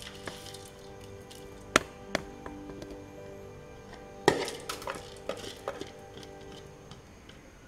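A plastic bowl and dry instant noodles knocking and clinking against a metal saucepan on a gas stove: a few sharp knocks, the loudest about four seconds in, followed by a scatter of small clicks. Faint steady tones of background music run underneath.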